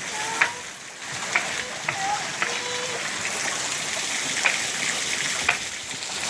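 Hail falling steadily: a constant hiss of hailstones striking surfaces, with scattered sharper single hits every second or so.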